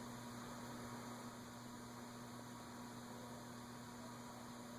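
Faint steady hum of a Casablanca Delta II ceiling fan's K55-type motor running on medium speed, with no bearing noise: its stiff, noisy bearings have been freed with WD-40.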